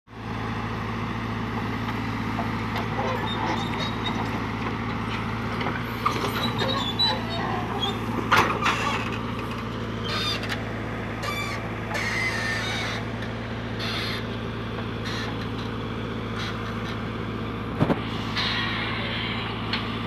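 JCB backhoe loader's diesel engine running steadily, with scattered knocks and rattles that are loudest about 8 seconds in.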